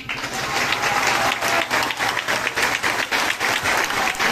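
Audience applauding: many people clapping, starting at once and holding steady.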